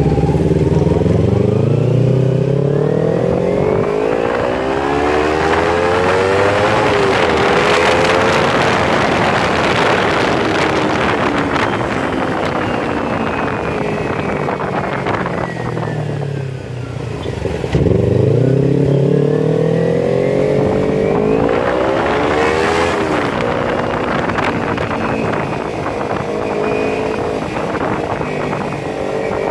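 Kawasaki Ninja 250 FI's parallel-twin engine through a Scorpion full-system exhaust with no dB killer, climbing in pitch for several seconds and then falling away, twice, with a brief dip in between.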